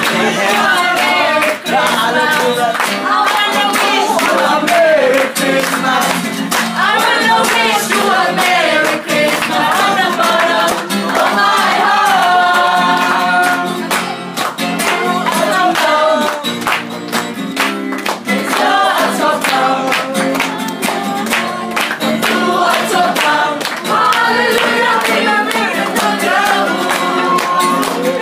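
A group of voices singing a carol together to a strummed acoustic guitar, with hand clapping along.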